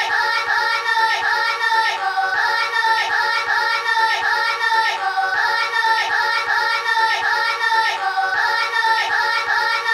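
Background music: a quick, evenly repeating melodic figure in the middle and upper range, with little deep bass.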